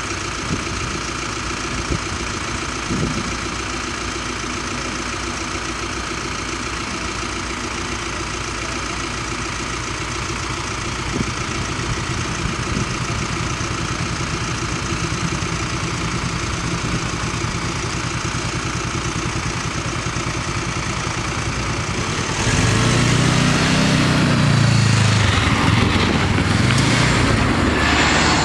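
Road vehicles idling in a queue at a railway level crossing. About 22 seconds in, engines rev up and down as the vehicles pull away across the tracks, which is the loudest part.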